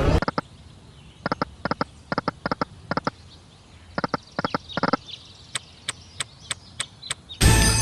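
Online slot game sound effects: a run of short, sharp blips, many in quick pairs, then lighter, higher ticks about three a second. Jingly game music comes in near the end.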